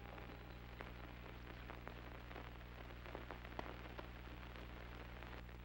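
Faint background noise of an old film print's soundtrack: a steady low hum with scattered clicks and crackles.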